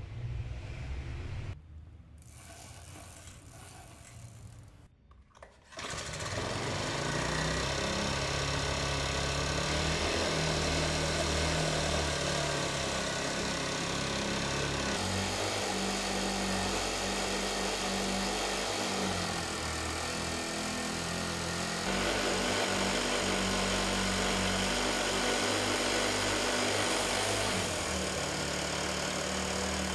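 Small 25cc four-stroke sprayer engine starting about six seconds in and then running steadily, its note shifting a few times in steps.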